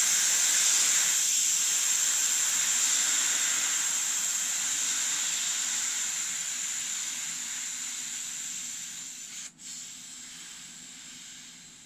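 Air hissing loudly out of a tire through its valve stem as it is deflated, fading steadily as the pressure falls, with one brief cut-off near the end. The tire is being let down from about 30 psi after seating the bead with ether, to vent the smoke and ether fumes from inside.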